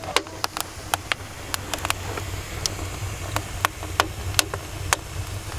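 Wood fire crackling in the brick firebox of a homebuilt smoker: irregular sharp pops and snaps over a low steady rumble.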